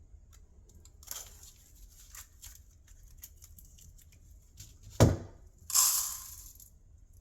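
Paper and cardboard tearing and rustling as the lift-powder section of a 5-inch canister shell firework is opened, with small handling clicks. There is a single sharp knock about five seconds in and about a second of harsh rustling just after it.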